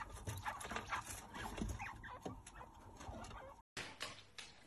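Baby chinchillas squeaking: many short, high chirps, some sliding in pitch, cutting off abruptly near the end.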